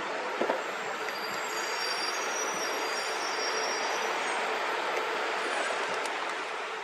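Street traffic: a vehicle passing close by, with a thin high-pitched squeal through the middle.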